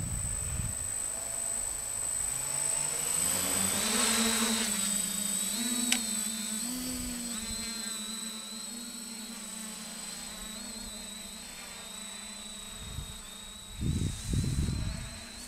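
Quadcopter's electric motors and propellers buzzing as it lifts off and climbs away, the whine rising in pitch about two to four seconds in, then holding steady and slowly fading as it flies off. There is a sharp click about six seconds in and a few low rumbles near the end.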